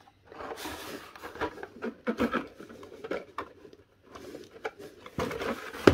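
Blister-packed Hot Wheels cards scraping and sliding against each other and the cardboard case box as they are pulled out, with irregular rustles and small plastic and card clicks. There is a sharper clack near the end.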